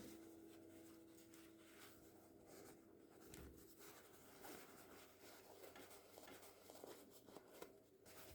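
Near silence with faint soft rustling and small clicks, like light handling or scratching. A lingering ringing tone from the preceding music fades out over the first four seconds.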